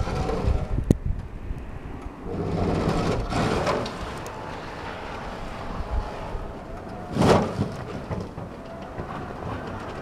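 Battery-powered garden tractor pushing snow with its front plough blade: a noisy scraping rush with no engine note. It swells around three seconds in, and a sharp, louder burst comes about seven seconds in.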